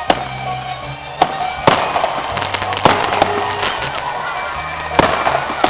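Fireworks going off: a string of sharp bangs and pops at irregular intervals, over background music with steady bass notes.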